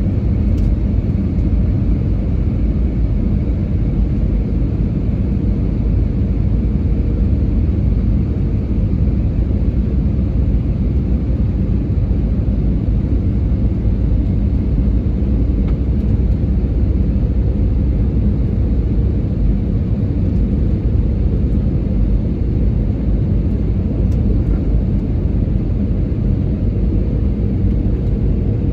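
Steady rumble of a passenger airliner's engines and airflow heard inside the cabin during the landing approach, with a faint steady hum running through it.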